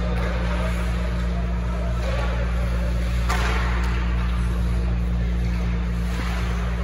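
Ice hockey arena ambience: a steady low rumble and hum, with hissing scrapes that come and go, one sharper about three seconds in.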